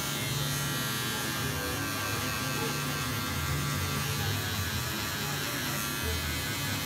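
Cordless electric hair clippers running steadily with a continuous buzz as the blade is worked through short hair at the side and back of the head.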